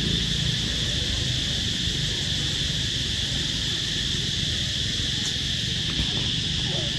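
Steady high-pitched drone of insects, with a low rumble beneath. A few faint short calls come in near the end.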